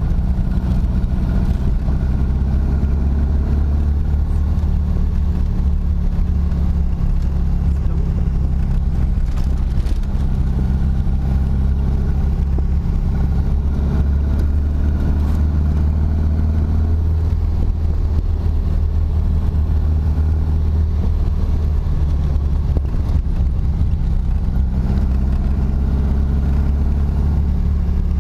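Car engine running while driving at a steady pace: a constant low drone with little change in pitch, picked up by a camera mounted on the car.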